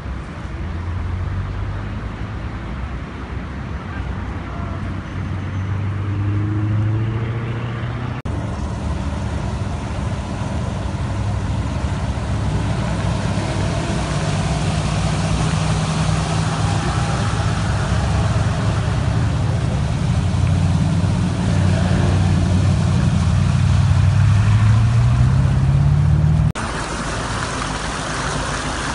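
A vehicle's engine running as it drives through floodwater, its note climbing for a few seconds in one stretch, with a rush of water splashing louder near the end. The sound changes abruptly twice where shots are cut together.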